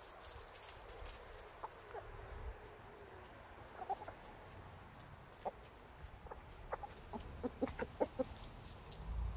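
Backyard chickens clucking quietly: scattered short clucks that come more often near the end as the hens crowd close.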